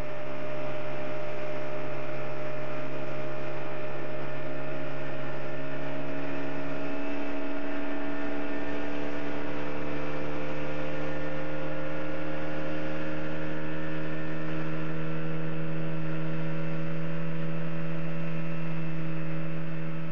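Motorboat outboard engine running steadily under way. Its pitch steps up about seven seconds in and then keeps rising slowly as the boat gathers speed.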